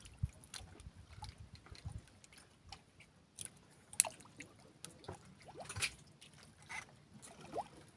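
Water sloshing softly against a small wooden boat's hull, with scattered light clicks and taps as a handline and baited hook are handled; the sharpest click comes about four seconds in.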